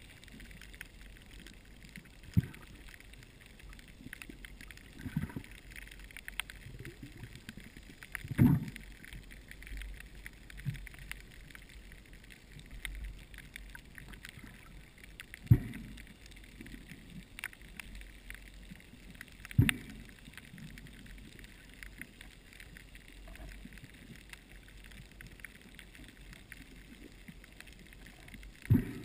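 Water surge heard underwater: a steady low wash broken by a short dull thump every few seconds.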